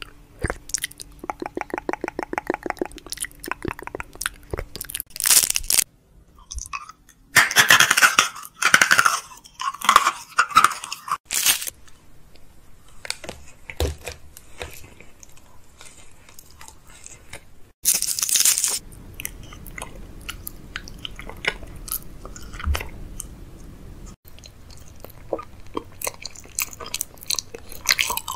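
Close-miked ASMR mouth sounds: several loud crunching bites and wet chewing, with a quick run of clicking mouth sounds in the first few seconds.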